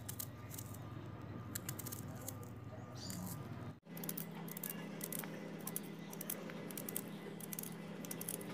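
Small kitchen knife cutting through red onion held in the hand, making soft, irregular crisp clicks and crunches over a low steady hum. The sound drops out for a moment about four seconds in, and the hum shifts.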